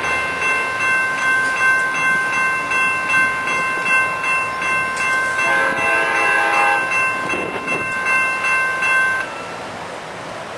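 Railroad crossing bell ringing steadily as an Amtrak passenger train goes through the crossing, with a short train horn sounding about halfway through. It all cuts off abruptly about nine seconds in, leaving quieter traffic noise.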